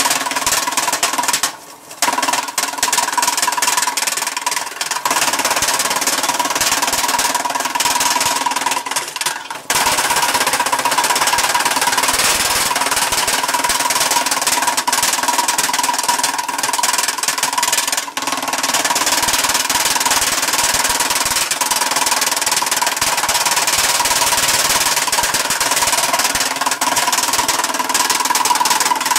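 Small belt-driven wood chipper running and chopping branches into chips: a loud, dense, rapid clatter over a steady whine from the machine. The noise dips briefly twice in the first ten seconds.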